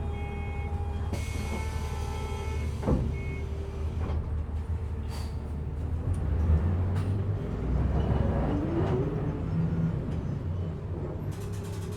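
Passenger bus heard from inside while travelling: engine running with road rumble. A hiss of air starts about a second in and lasts a couple of seconds, and there is a sharp knock just after it.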